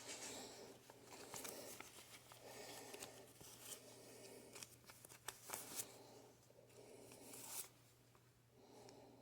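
Faint rustling and flicking of paper banknotes as a stack of dollar bills is leafed through, with small clicks scattered throughout and a low steady hum underneath.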